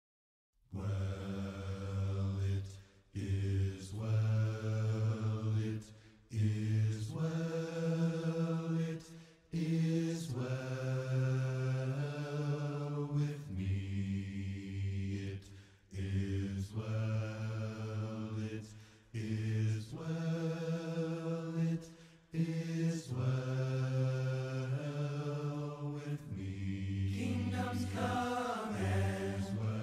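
Unaccompanied singing in low voices: slow, held notes in phrases of two to three seconds with short breaks between them, a hymn sung a cappella.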